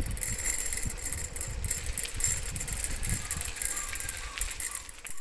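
Bicycle riding over a dirt lane: the tyres rolling on dirt and dry leaves with a light rattle, and wind rushing unevenly over the phone's microphone.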